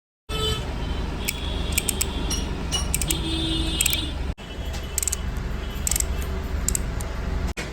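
Royal Enfield Bullet 350 single-cylinder engine running on the road, a steady low rumble with a fast pulse, amid wind and traffic noise with scattered rattles and short beeps. The sound drops out briefly twice.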